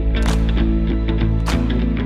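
Background music: sustained bass and guitar chords with a steady drum beat.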